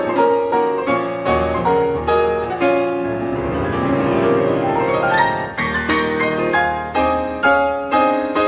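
Solo piano music, a run of quick repeated notes with a more sustained, ringing passage in the middle.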